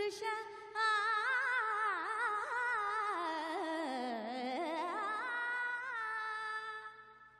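A woman singing a verse solo in a slow, heavily ornamented melody: one long phrase that wavers and slides down to a low point midway, rises again and ends on a held note that fades away near the end.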